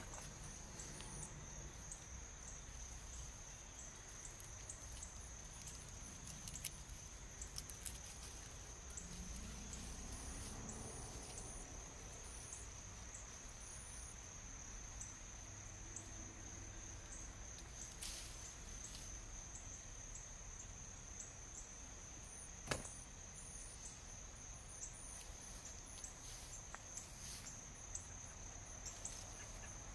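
A steady, high-pitched insect trill, faint, with a single sharp click about three-quarters of the way through.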